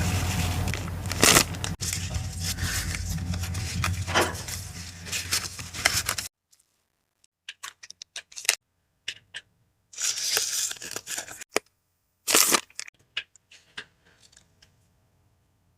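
Packaging being handled and crinkled by hand during an unboxing. Continuous rustling lasts about six seconds and cuts off suddenly. Scattered short rustles and taps follow, with two louder bursts of crinkling near the end.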